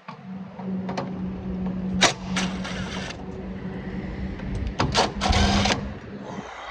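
A small motor runs with a steady hum, broken by sharp metallic clicks and two short rattling clatters.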